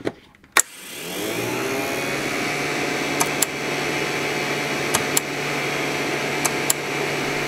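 A click as the CNC control box is powered on, then its cooling fans spin up over about half a second and run with a steady whir and low hum. Three pairs of faint short ticks come through over the whir.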